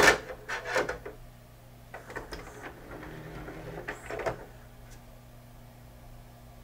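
Plastic clicks and knocks as a hand moves the disc and carousel tray of an opened Sony CDP-C305 five-disc CD changer, several in the first second and more about two and four seconds in. A faint steady hum runs underneath.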